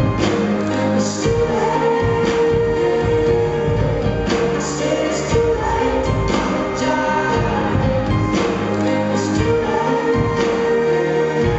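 Live pop-rock band playing a song with sung vocals over piano and drums, recorded from among the audience.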